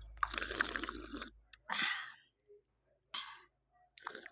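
Close-up mouth noises of someone drinking: a noisy slurp of about a second, then two shorter slurps.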